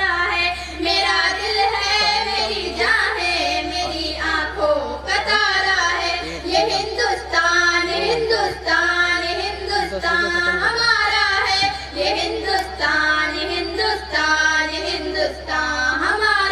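A female voice singing a tarana, a patriotic Hindi-Urdu song, in a flowing melody with vibrato, over a steady low hum.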